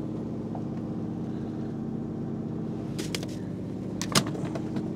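Steady low hum of the fishing boat's engine running, with a few sharp clicks about three seconds in and a louder knock about four seconds in.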